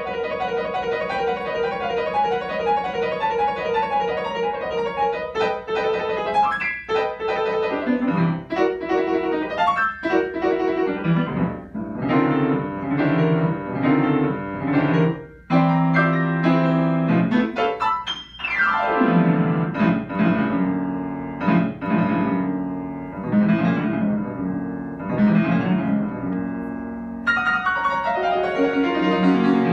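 Grand piano played solo: quick, busy passages of many short notes, then heavier low chords from about halfway, with a brief sweep down the keyboard about eighteen seconds in.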